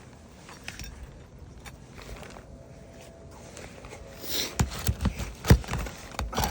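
Metal flat bar knocking and scraping against roof shingles as they are pried up to get at the nails. Quiet at first, then several sharp knocks and a scrape from about four seconds in, the loudest knock near the end.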